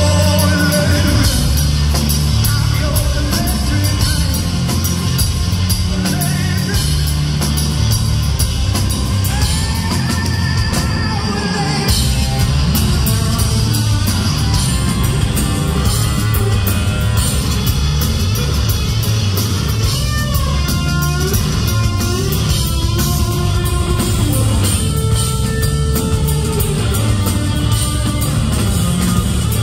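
A rock band playing live and loud: distorted electric guitar over a drum kit, with notes bending in pitch about two-thirds of the way through.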